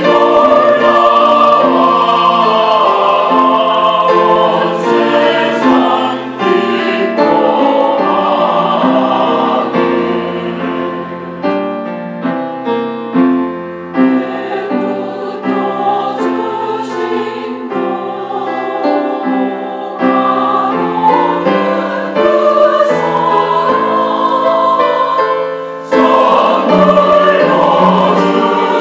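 Mixed-voice church choir singing a sacred anthem in parts with grand piano accompaniment. The singing grows softer for a stretch near the middle and swells to full voice again near the end.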